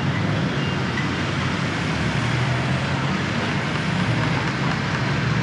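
Steady road traffic noise, with engines running low under an even wash of tyre and street noise.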